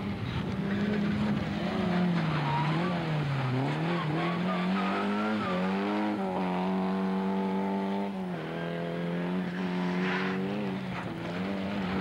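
A rally car engine revving hard on a loose gravel stage. The note dips and rises several times, is held high for about two seconds, then drops about two-thirds of the way in as the driver lifts off or changes gear.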